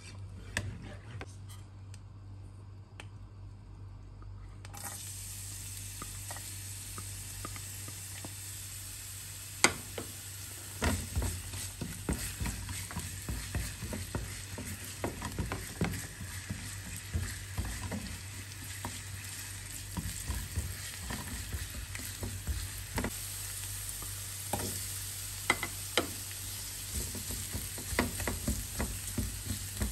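Oil sizzling in a nonstick frying pan, with chopped garlic and then onion sautéing in it. A steady sizzle begins about five seconds in and a sharp knock comes just before ten seconds. After that a spatula scrapes and taps against the pan again and again as the food is stirred.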